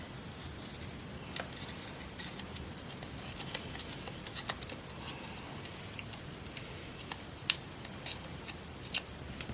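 Magazine paper scraps being handled and torn: a string of short, irregular crisp crackles.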